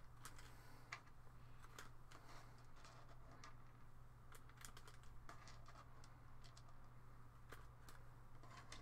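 Faint, scattered clicks and crinkles of a small zip-lock plastic bag being handled while small 3D-printed miniature parts are fished out of it.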